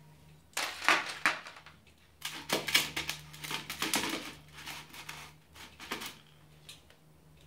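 Gloved hands gripping and shifting a ceramic pot of succulents topped with masato gravel: handling noise of clicks and rustling, in a short burst about half a second in and a longer run from about two to six seconds in.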